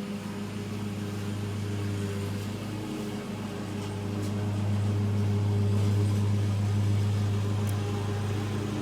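Steady low mechanical hum, a little louder in the middle, with no alarm sounding.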